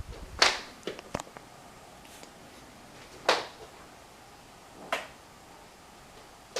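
Sharp clicks from a ceiling fan's pull-chain switch being worked: a quick cluster of three or four in the first second or so, then single clicks about every one and a half seconds.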